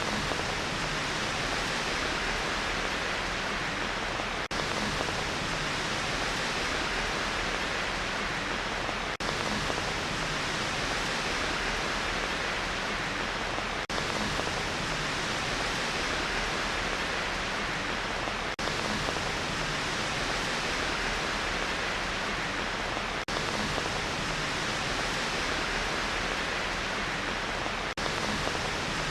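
Steady rain hiss, an even downpour with no separate drops standing out. It is a short recording looped, with a faint seam and a slight dip in level about every four to five seconds.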